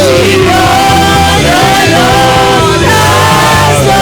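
Live church worship music: a voice singing long held notes of a refrain over a band with steady bass and keyboard.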